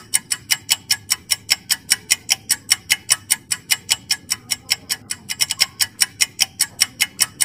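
Clock-ticking sound effect for a quiz countdown timer: fast, even ticks at about five a second.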